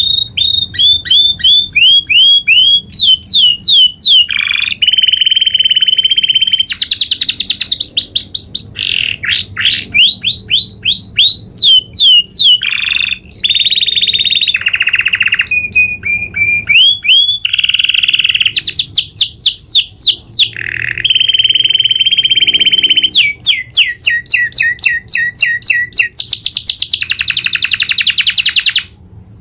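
Domestic canary singing a long, continuous rolling song: rapid trills and fast runs of repeated sweeping notes, the phrase changing every second or two, with a brief pause near the end.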